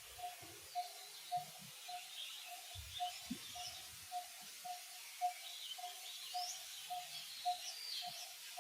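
Birds chirping in short, gliding high calls, over a steady repeated single note about twice a second. A few faint low knocks now and then.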